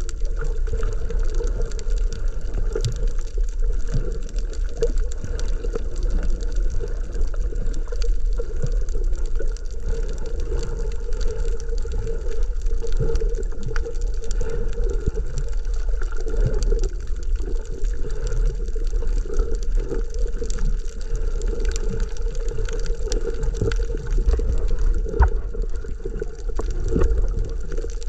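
Underwater sound picked up by an action camera in its waterproof housing: a steady, muffled low rush of water with constant faint crackling clicks.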